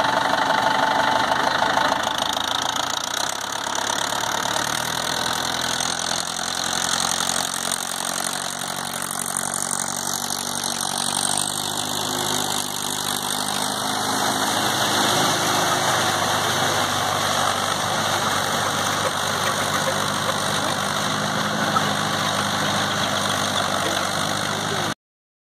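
Mahindra Yuvo 575 DI tractor's diesel engine running steadily at low revs. The sound cuts off suddenly near the end.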